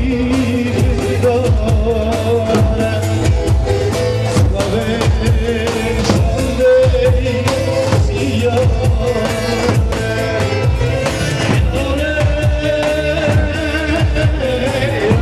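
Live Turkish folk dance music (halay) from a wedding band: a steady drum beat under a wavering, ornamented melody, with singing.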